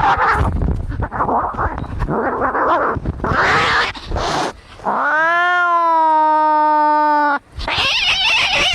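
Angry cats fighting: harsh hissing and spitting cries, then one long drawn-out yowl of about two seconds, followed by more harsh hissing.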